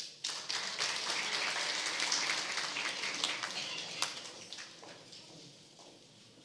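Audience applauding: a dense patter of clapping that starts at once, holds for about four seconds, then dies away.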